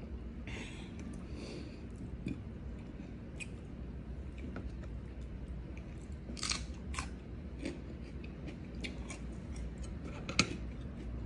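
Eating sounds: a sip through a straw, then chewing and crunching of raw vegetables with scattered small mouth clicks. About ten seconds in, a sharp clink of a metal spoon against a glass bowl.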